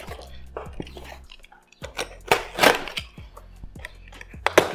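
Utility knife slicing packing tape and cardboard on a shipping box: a few short scraping cuts and light knocks, loudest about two seconds in, over a low steady hum.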